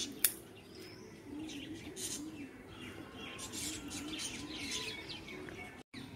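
Birds chirping throughout, with a dove cooing in a low repeated pattern underneath. A single sharp snip of scissors cutting a plant stem comes just after the start.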